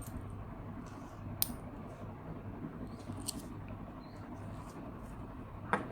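A few faint, sharp clicks of small handling, about 1.5 s in, about 3 s in and near the end, over a low steady hum.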